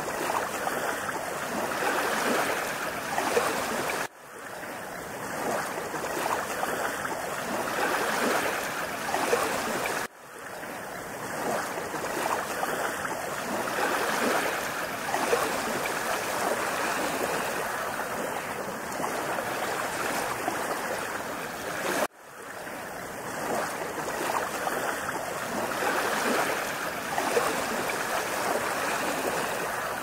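Steady rushing water, a dense even roar. It drops away sharply and swells back in three times, about 4, 10 and 22 seconds in.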